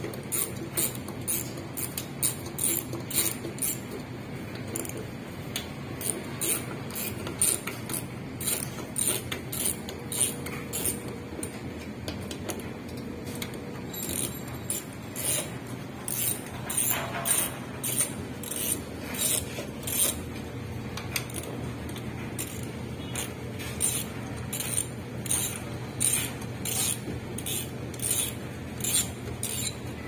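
Sharp metallic clicks and taps of hand tools at work on a washing machine being taken apart, irregular, one to three a second, over a steady low hum.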